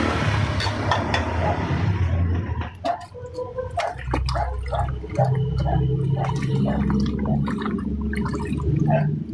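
Water rushing for the first couple of seconds, then gurgling and bubbling in short pulses about twice a second over a steady low hum.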